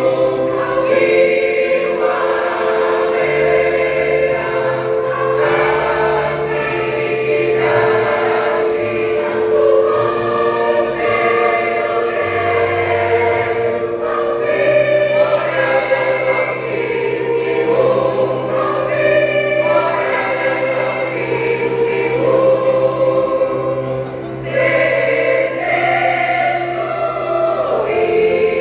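Church choir singing a gospel hymn, many voices holding long notes over steady low tones.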